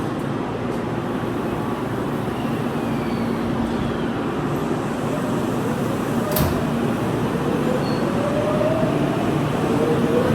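Tokyu electric commuter train running through the station: a steady rumble, a sharp click about six seconds in, and a motor whine that rises in pitch over the last few seconds as the sound grows louder.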